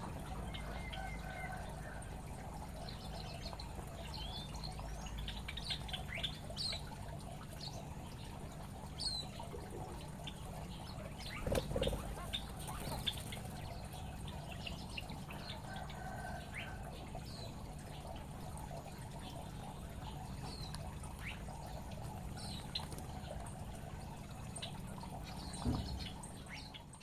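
Small aviary birds chirping with many short, scattered calls over a steady low hum, with a couple of brief knocks.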